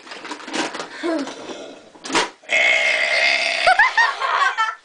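A child burping on purpose: one long, rough burp starting about halfway through and lasting about two seconds.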